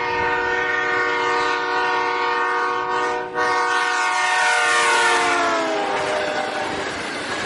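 A train horn sounding a steady chord, with a short break about three seconds in, then dropping in pitch about five seconds in as the train passes: the Doppler effect. The horn then fades into the noise of the passing train.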